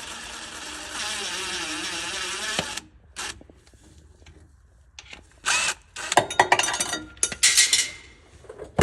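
Handheld power tool running, its pitch wavering, for about three seconds, then stopping, typical of a drill or electric ratchet working a 10 mm bolt on the van's engine. Later, several short clattering bursts.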